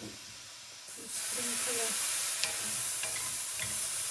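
Hot stainless steel skillet of vegetables sizzling as a spoonful of broth hits it, the hiss starting suddenly about a second in and holding steady, with a wooden spoon stirring and scraping the pan bottom: deglazing the skillet.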